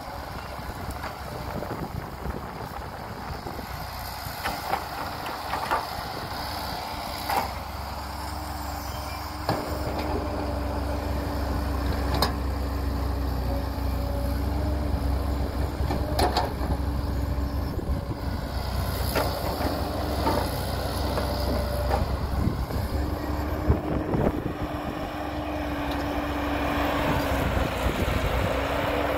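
Heavy diesel earthmoving machinery, an excavator and dump truck, running steadily, the engine growing louder about ten seconds in, with scattered sharp clanks.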